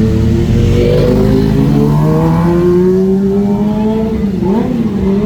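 Tour bus engine accelerating close by, its pitch rising steadily, dipping briefly about four and a half seconds in, then rising again.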